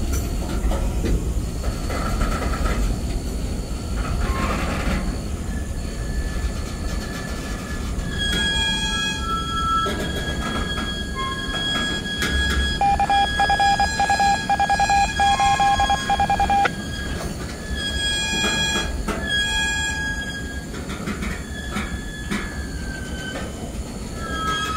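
Freight train boxcars rolling past with a steady rumble of steel wheels on rail. From about a third of the way in, the wheels squeal in several high steady tones that come and go, with a rapidly pulsing squeal in the middle.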